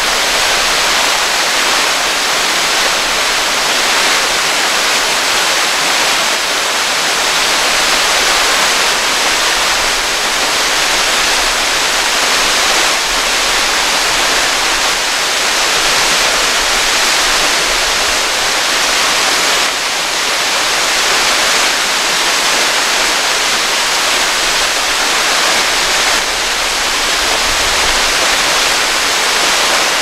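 Apa Spânzurată waterfall rushing: a loud, steady hiss of falling water with no other sound over it.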